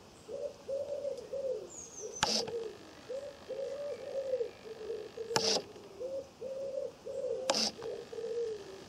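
A pigeon cooing over and over in phrases of several low notes. Three times it is cut across by a short, sharp click-whir: the toggle switch being flipped and the hobby servo swinging to throw the garden-railway points.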